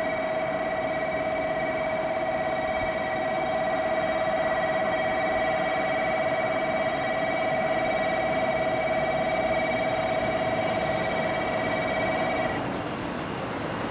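Station platform train-approach warning: a steady electronic alarm tone that cuts off near the end, over the running noise of a JR 415 series electric train pulling in.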